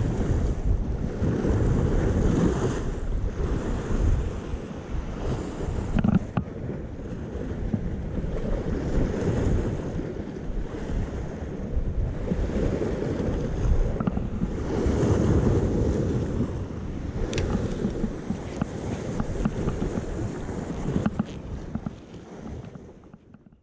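Sea surf washing against a rocky shore, swelling and easing every few seconds, with wind on the microphone and a few faint clicks; it fades out near the end.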